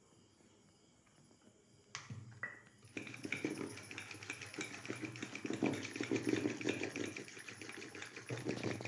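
Gram flour being beaten into a spiced liquid with a wooden spoon in a steel bowl. There are a couple of light knocks as the flour goes in, then from about three seconds in a fast, steady run of sloshing, scraping stirring strokes.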